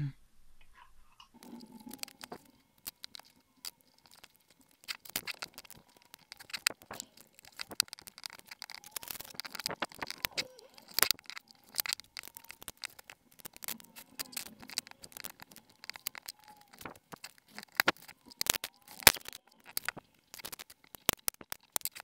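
Black plastic zip ties being threaded and pulled tight around a hard drive sitting on a metal ATX power supply, with hands shifting the parts: a long run of irregular clicks, rattles and crackles. It starts about a second in, and a few sharp clicks stand out, the loudest about three-quarters of the way through.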